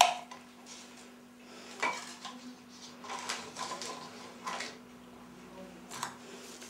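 Metal spoon and kitchen dishes clinking: a handful of separate light clinks and knocks a second or so apart. The loudest comes right at the start, as the spoon scrapes and taps sour cream out of its cup.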